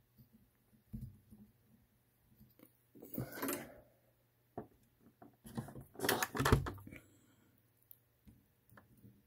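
Small handling noises at a soldering bench: scattered clicks, a short rustling scrape about three seconds in, and a louder cluster of knocks and rattles around six seconds in, as the soldering iron, wire and connector are moved about.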